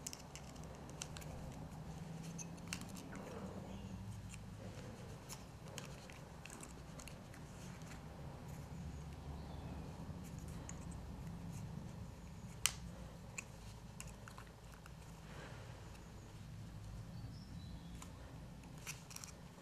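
Small metal clicks and scrapes of needle-nose pliers gripping and bending paperclip wire into a rod eyelet, with one sharper click past the middle, over a steady low hum.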